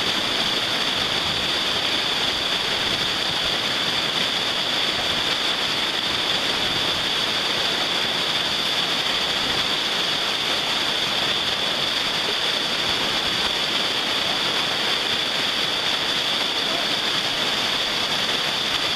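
Whitewater rapids rushing steadily around a boulder: a constant, even churning of fast river water.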